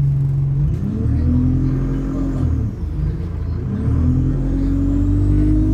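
Bus engine heard from inside the cabin, idling steadily and then revving hard as the bus pulls away. The pitch climbs, drops back about two and a half seconds in as the gearbox changes up, then climbs again.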